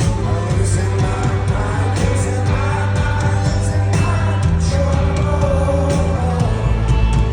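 A rock band playing live, with singing over drums, bass and guitar; the bass moves to a new note about halfway through.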